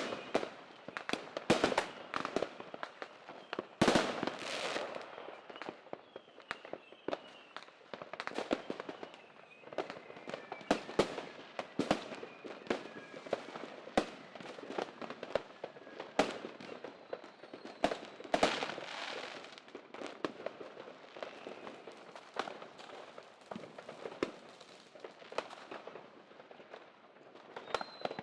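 Fireworks and firecrackers going off irregularly: many sharp bangs at uneven intervals, a few louder ones about four seconds and eighteen seconds in trailing off in a brief crackle or echo.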